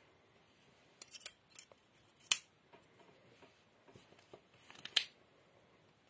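Victorinox Bundeswehr pocket knife being handled and folded: small clicks of the tools, then two sharp metallic snaps as its blades shut against the backspring, one a little over two seconds in and one near the end.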